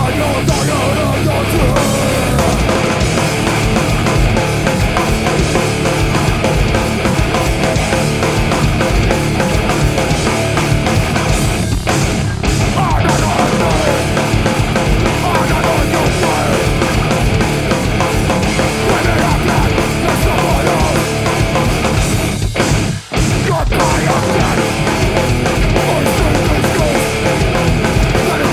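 A four-piece rock band (guitar, bass and drums) playing a heavy, fast song live, with dense rapid drumming. The music breaks briefly about twelve seconds in, then cuts to a short stop about 23 seconds in before crashing back in.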